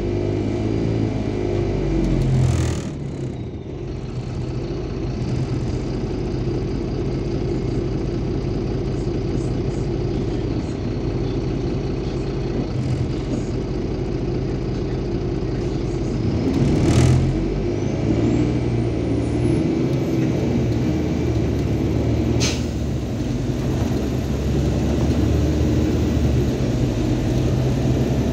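Inside a MAZ-203 city bus on the move: the engine drones steadily, its note dropping and picking up again about three seconds in and again around seventeen seconds. A single sharp click comes a little past two-thirds of the way through.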